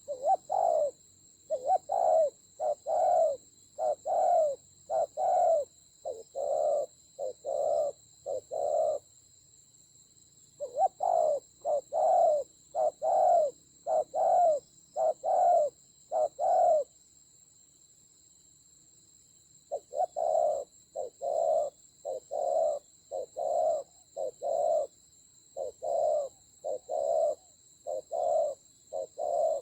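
Spotted doves cooing: runs of quick, low coos, about one or two a second, breaking off twice for a couple of seconds. A thin, steady high-pitched whine runs underneath.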